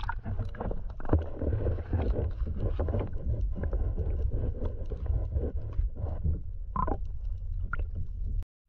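Muffled water sloshing and rumbling around a submerged camera, with many small clicks and two sharper knocks near the end. The sound cuts off suddenly just before the end.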